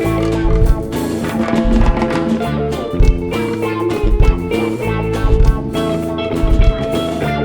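Rock band playing an instrumental passage between sung lines: electric guitars over bass and a steady drum-kit beat.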